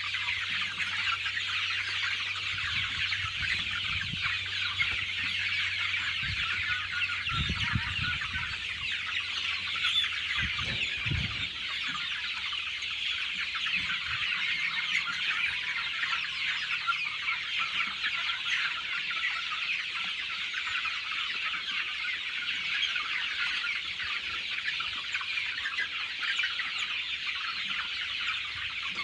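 A flock of chickens in a poultry house, many birds clucking and chirping at once in a steady, continuous din of short high calls.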